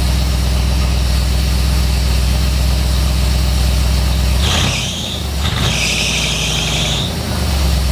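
Ford 302 V8 with FiTech electronic fuel injection running steadily. About halfway through, the engine note changes and a high-pitched noise joins for two to three seconds.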